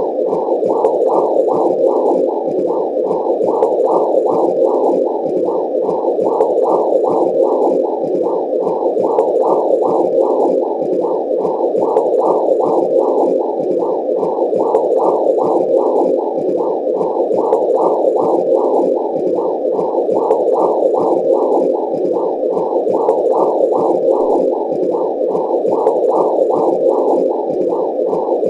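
Womb sound: a muffled whooshing noise that swells and fades evenly about twice a second, like blood flow pulsing with a heartbeat heard from inside the womb.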